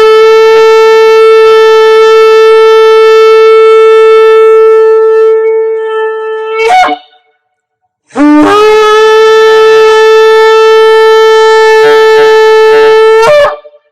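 A ram's-horn shofar blown in two long, loud blasts about a second apart. Each blast starts on a lower note that jumps up, is held steady and ends with a short upward break.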